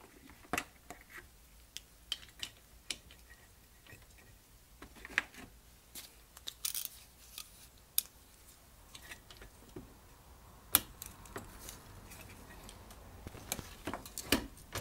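Small metal carburetor parts and hand tools clicking and clinking as they are handled during a one-barrel carburetor rebuild, in scattered irregular taps with a sharper click a little before halfway and a quick cluster near the end.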